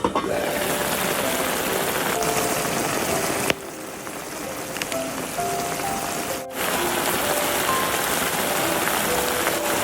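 Food sizzling and crackling as it fries in hot oil, a dense steady hiss that drops to a quieter sizzle for about three seconds midway and comes back full. Soft background music plays over it.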